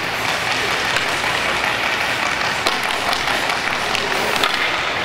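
Sharp scattered taps of a hockey stick handling a puck, with skates scraping the ice, over a steady noisy hiss.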